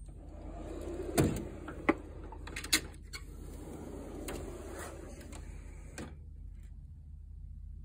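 Metal tool chest drawers sliding on their metal slides, one drawer pulled open, with a few sharp clicks and knocks along the way; the sliding stops suddenly about six seconds in.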